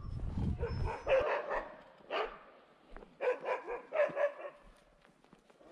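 A dog barking: a run of short barks, about half a dozen in small clusters over a few seconds. A low rumble sits under the first second.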